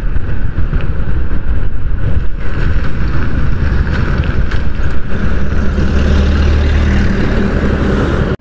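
Hero HF Deluxe motorcycle's single-cylinder engine running while riding, with wind rumble on the handlebar-mounted phone's microphone; the engine note settles and steadies in the second half as the bike slows to pull over.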